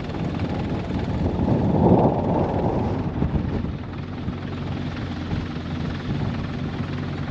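Steady low rumble of an idling engine mixed with wind buffeting the microphone, swelling for about a second around two seconds in.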